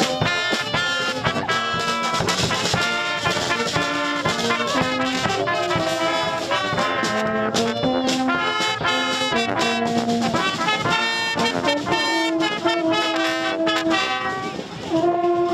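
Small street brass band playing a tune on trumpets and a sousaphone over a steady bass drum beat. The music dips briefly near the end.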